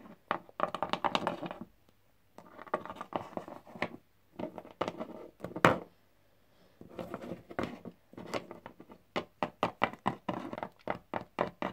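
Littlest Pet Shop plastic figurines tapped along a wooden tabletop by hand to make them walk: quick runs of light plastic-on-wood taps, broken by short pauses, with one louder knock about halfway through.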